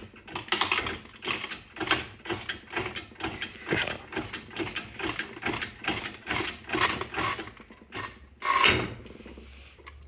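Hydraulic shop press being pumped down onto a glass bottle full of crumpled aluminium foil, with an irregular run of clicks and creaks. About eight and a half seconds in there is a louder crunch as the glass gives way under the ram, a crack rather than a bang.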